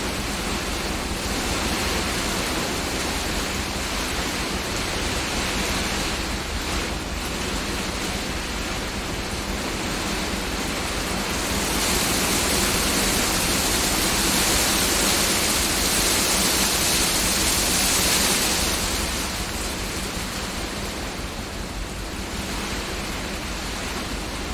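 Rain and hail falling on a greenhouse roof, heard from inside as a steady dense hiss. It grows heavier and brighter about twelve seconds in, then eases off again after about seven seconds.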